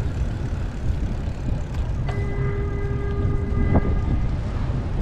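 A horn sounds one steady note for about two seconds, starting about two seconds in, over a constant low rumble of wind on the microphone while riding.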